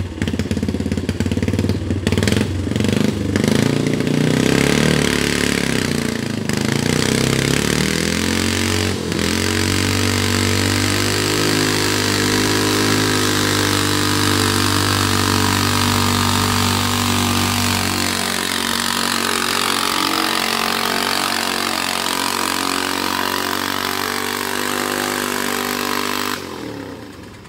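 Modified pulling garden tractor's engine revving unevenly, then held at full throttle as it drags a weight-transfer sled. The pitch sags slowly as the sled's load builds, and the engine cuts off suddenly near the end.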